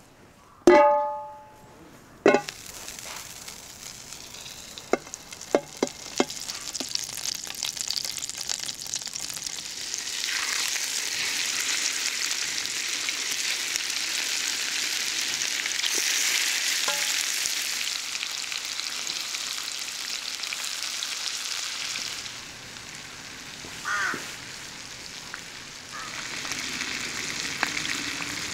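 Salmon steaks sizzling in hot oil in a frying pan over charcoal, a steady hiss that swells about eight seconds in and eases for a while before picking up again near the end. A sharp ringing metal clank about a second in, with a few lighter clicks after it.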